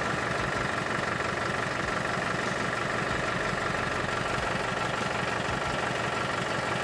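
Vehicle engine idling steadily, heard close to the fuel tank.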